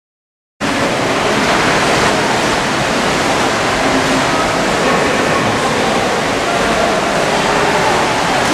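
Steady, echoing wash of noise from an indoor swimming pool hall, mostly splashing and lapping water, starting abruptly about half a second in.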